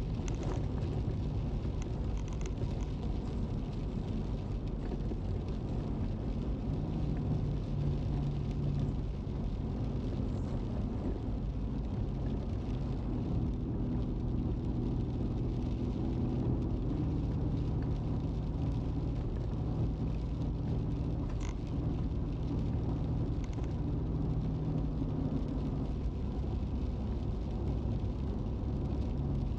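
Car driving along a wet road, heard from inside the cabin: a steady engine and tyre drone whose low hum shifts in pitch a few times as the speed changes, with a few faint ticks.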